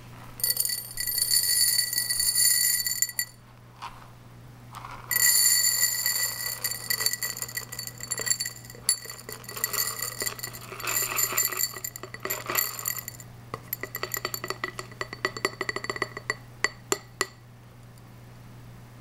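The small loose beads that weight a reborn doll are poured into a glass cup. They patter and clink against the glass, which rings steadily. The beads pour in two long streams and then trickle in as separate clinks that die away.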